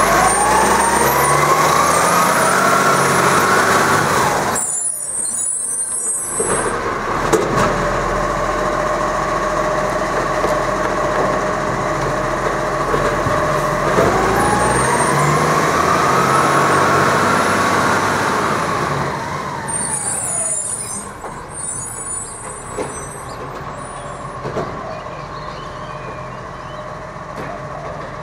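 ACCO side-loader garbage truck's diesel engine revving as the truck pulls away, its pitch rising twice as it picks up speed, with short hisses of air. It grows fainter in the second half as the truck moves off down the street.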